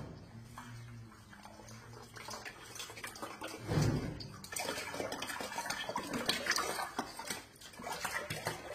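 Tap water running into a stainless steel pot of cut taro sticks as they are rinsed, then the pot tipped and the water poured off into the sink, splashing and clattering, with a dull knock of the pot about four seconds in.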